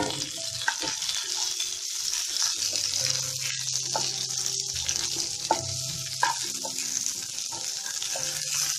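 Sliced onions sizzling in hot oil in a kadai, stirred with a wooden spatula that scrapes and clicks against the pan now and then. The onions are being fried just to cook off their rawness, not to brown.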